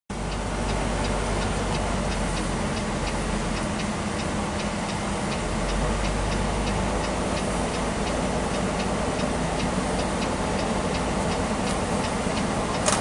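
Steady running noise inside a semi truck's cab in slow traffic, with a low engine rumble underneath. A light, even ticking, about three ticks a second, runs through it and fades after about seven or eight seconds.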